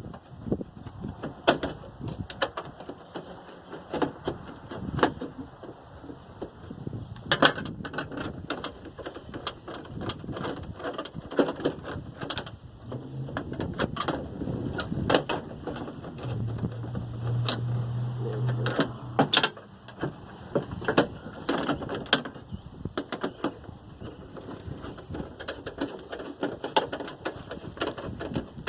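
Scattered metallic clicks and knocks of latch parts, rods and clips being handled and fitted into a pickup tailgate's latch mechanism, with a low steady hum for a few seconds around the middle.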